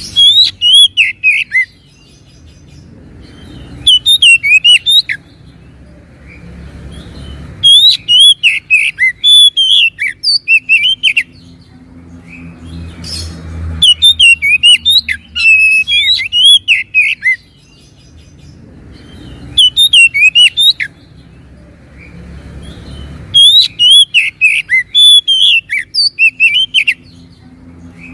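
Oriental magpie-robin (kacer) singing loud, varied whistled phrases with quick rising and falling notes. The song comes in six bursts a few seconds apart, with a faint low hum in the pauses.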